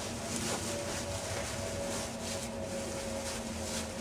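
Steady background hiss with a faint steady hum, and soft rustling of feet in dry leaf litter.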